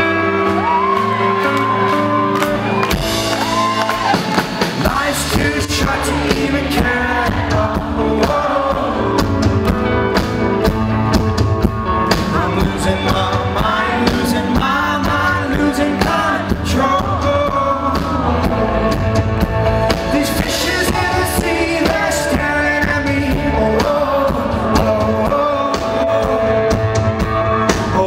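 Rock band playing live, with lead vocals over held chords; the drums and bass come in about three seconds in and the full band plays on under the singing.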